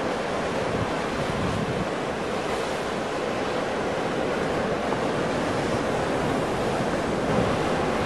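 Ocean surf: waves breaking and washing in a steady, continuous rush of noise.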